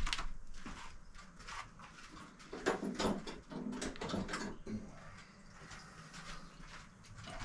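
Handling noise: scattered light clicks, knocks and rustles as pinpointer metal detectors are picked up and moved about.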